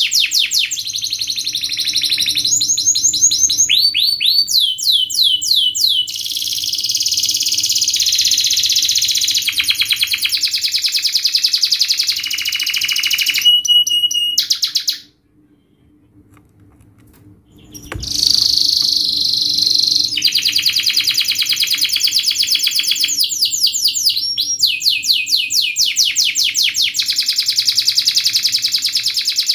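Domestic canary singing a fast, dense song of rapid trills, each phrase a quick run of repeated notes, many sliding down in pitch. The song breaks off for about three seconds near the middle, a single click sounds, and then the trilling starts again.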